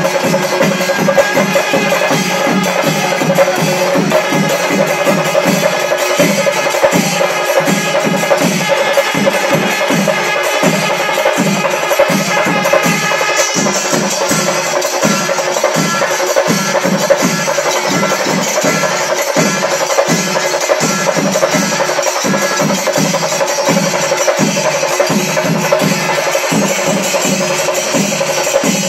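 Kerala temple melam ensemble playing: chenda drums beating a steady, fast rhythm with cymbals, over held notes from kuzhal pipes and kombu horns. The cymbal shimmer grows brighter about halfway through.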